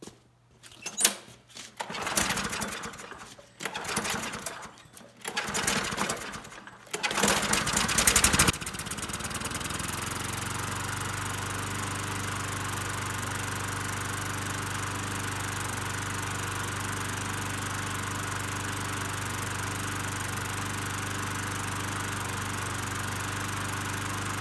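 Kohler-powered Ariens walk-behind lawnmower being pull-started: several rough pulls and sputters over the first eight seconds or so, then the engine catches and runs at a steady, even speed.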